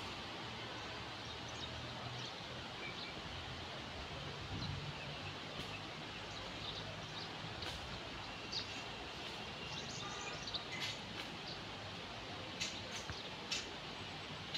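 Outdoor ambience of a steady hiss with short, high bird chirps scattered through it, more frequent in the second half.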